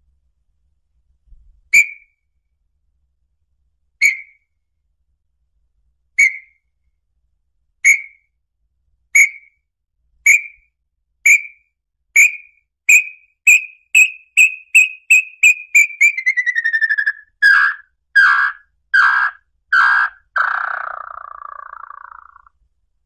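Song of the inhambu pé-vermelho, a tinamou, played to lure the bird. Clear whistled notes come slowly at first, then faster and faster and slightly higher. About two-thirds of the way in they run into a quick trill that falls in pitch, followed by a few louder, lower notes and a final rough, buzzy note.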